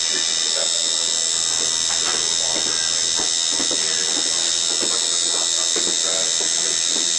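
Tattoo machine buzzing steadily as the needle works into the skin.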